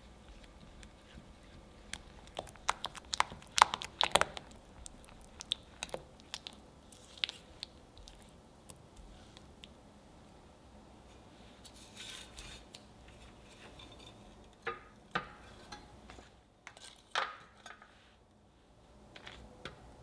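Spatula stirring thick dark-chocolate ganache in a glass bowl: sticky squelches and scrapes with clusters of sharp clicks against the glass, busiest two to four seconds in.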